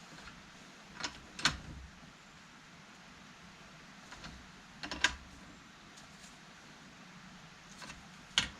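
A few sharp clicks and knocks from hand tools at work on the pump: a pair about a second in, one about five seconds in, and a quick group near the end.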